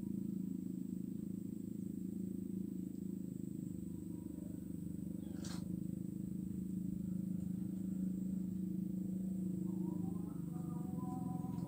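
A steady low droning hum with a fine rapid pulse throughout, broken by one sharp click about halfway through and faint higher tones near the end.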